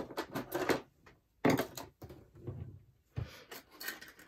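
Tabletop handling noises: paper rustling and a few knocks and clatters as a pair of scissors is fetched, the loudest a sharp knock about a second and a half in and a duller thud a little after three seconds.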